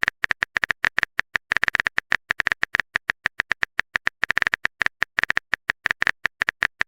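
Typing sound effect: a fast, irregular run of sharp keyboard clicks, about eight to ten a second, with no pauses longer than a fraction of a second.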